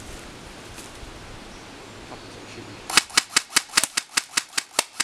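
Airsoft rifles firing a fast string of sharp shots, about five a second, starting about three seconds in. Before the shots there is only a faint outdoor background.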